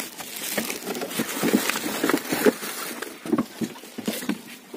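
Irregular knocks and bumps of someone moving about aboard a small wooden boat, mixed with rustling from handling the camera.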